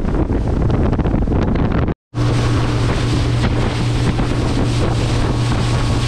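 Fishing boat's motor running under way, with heavy wind buffeting the microphone and water rushing past. The sound breaks off sharply for a moment about two seconds in, then resumes with a steady engine hum standing out.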